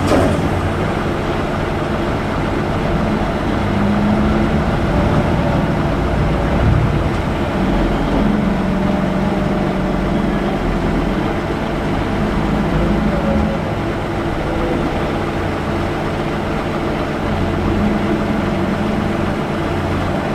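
Claas Torion 1914 wheel loader's diesel engine working, its revs rising and falling several times as it digs into the chopped maize and lifts its bucket.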